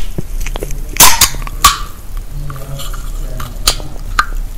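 Close-miked eating and tableware sounds: a run of sharp clicks, crunches and clatters, with louder snaps about a second in and twice more later.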